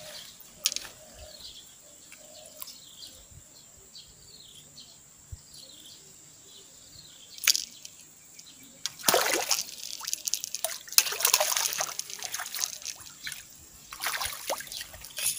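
A hooked catfish thrashing and splashing at the surface of a pond. The splashing comes in loud bursts from about nine seconds in and again near the end, showing the fish has taken the bait.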